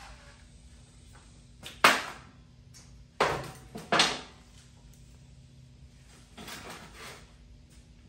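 Tools and metal parts knocking down onto a steel workbench: three sharp clanks, the loudest about two seconds in and two more around three and four seconds in. A softer rustle follows near the end.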